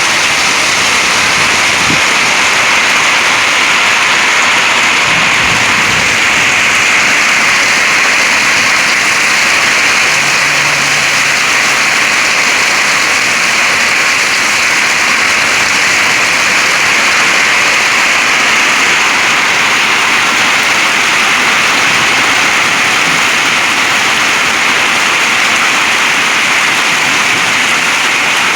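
Heavy thunderstorm rain pouring down: a loud, steady, dense hiss that does not let up.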